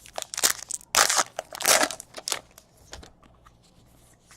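Trading-card pack wrapper crinkling and tearing in the hands, in a few loud rustles over about two seconds, then faint handling of cards.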